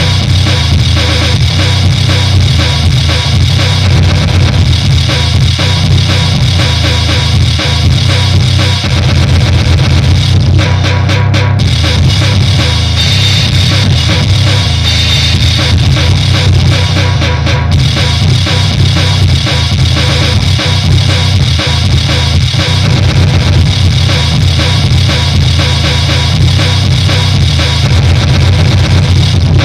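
Goregrind demo recording: dense, loud distorted guitar and fast drums playing without a break.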